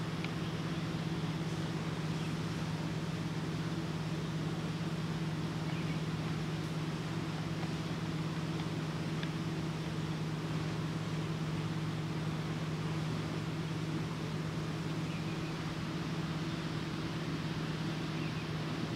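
A steady, low motor hum at a constant pitch, over a faint even hiss.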